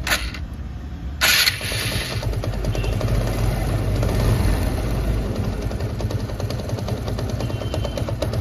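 TVS Apache RTR 160's single-cylinder engine running at idle with a fast, abnormal rattle from inside the engine, a rattle that gets louder off the throttle. A short loud burst of noise comes about a second in.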